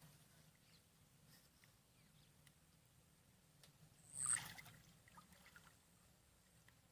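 Near silence, broken about four seconds in by a short splash of water lasting under half a second, followed by a few faint drips.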